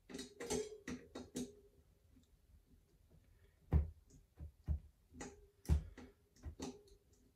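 Irregular metallic clicks and knocks from hand tools and bicycle parts being handled, about a dozen strikes, several with a brief ringing tone, during work fitting a bicycle brake disc.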